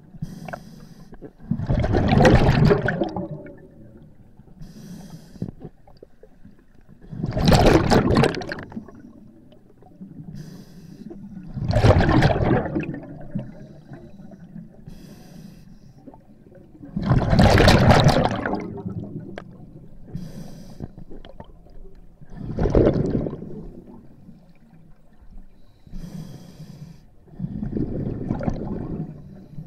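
Scuba diver breathing through a regulator: six loud bubbling exhalations about five seconds apart, each with a faint hiss of the inhale between them.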